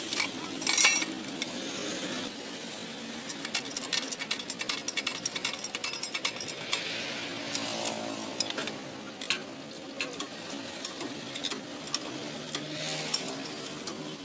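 Heavy mechanical lever jack being worked by hand with a pipe handle: repeated sharp metallic clicks and clanks of the jack's ratchet and rack, with a loud clank about a second in and a quick run of clicks a few seconds later, over a low steady hum.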